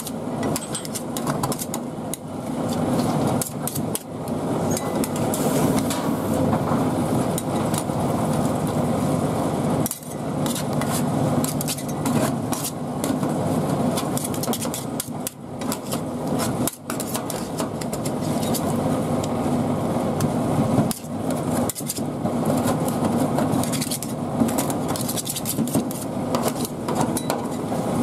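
Two metal spatulas chopping and scraping a tomato and cream mixture on a steel cold plate: a fast, continuous run of metallic taps and scrapes over a steady background hum.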